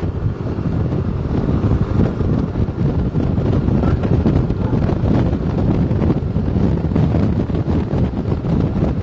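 Wind buffeting the microphone on a moving motor scooter: a loud, dense, fluttering low rumble.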